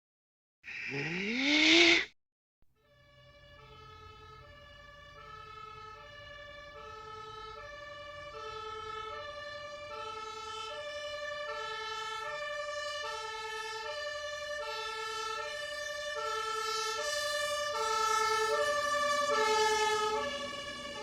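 A short, loud sound rising in pitch about a second in, then a two-tone hi-lo emergency-vehicle siren alternating between two notes. The siren fades in and grows louder as if approaching, easing off slightly near the end.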